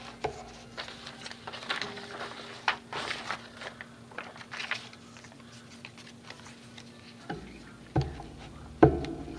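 Paper rustling and crinkling in short scattered strokes as a large sheet is handled and laid down on a paper collage, then two sharp knocks on the table about eight and nine seconds in.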